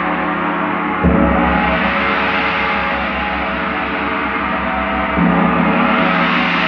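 Large bell ringing, struck about a second in and again about five seconds in, each strike ringing on with a slow pulsing hum over the still-sounding earlier tones.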